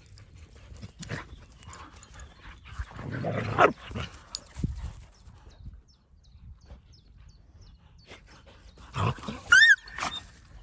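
Dalmatians play-fighting: a short gruff vocal burst about three seconds in and a sharp high-pitched yelp near the end, with rustling and scuffling between.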